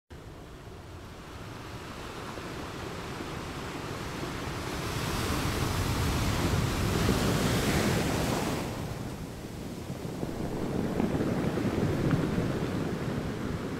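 Ocean surf: a steady wash of waves that swells to a peak in the middle, falls back, and swells again near the end.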